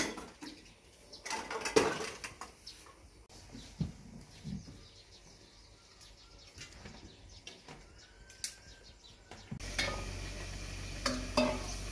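Scattered handling sounds: clicks, light knocks and rustling as a pop-up mosquito net is folded and bedding is laid on a string cot. About three-quarters of the way through this gives way to a steady outdoor background noise, with a couple more knocks near the end.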